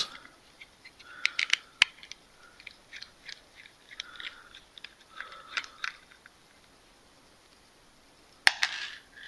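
Number 9 Torx driver backing small screws out of the back housing of a Baofeng UV-5R handheld radio: light, irregular clicks and scratches of the bit working in the screw heads. This is followed by a quieter stretch and one sharper knock near the end.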